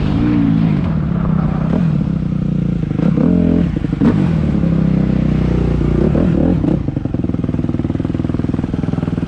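2014 Suzuki RM-Z250's single-cylinder four-stroke engine running mostly off the throttle, with a couple of short revs as the dirt bike rolls up. From about seven seconds in it settles to a steady idle.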